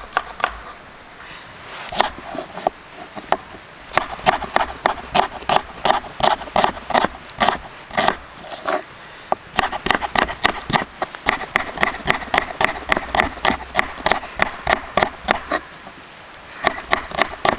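A knife slicing red onions on a wooden chopping board, with quick steady strokes about three a second that pause briefly near the end.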